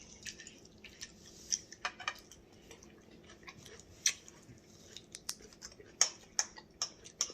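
People chewing and smacking their lips while eating: scattered, irregular soft clicks and smacks.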